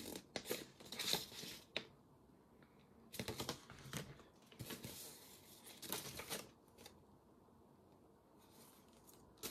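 Paper user manual and packaging being handled and leafed through, in short bouts of rustling and crinkling with quiet gaps between.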